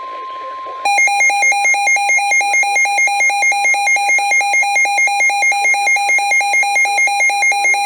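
A steady NOAA Weather Radio 1050 Hz warning alarm tone cuts off about a second in, and a Midland weather radio's alarm takes over: a loud electronic beep warbling about four times a second, set off by the severe thunderstorm warning being broadcast.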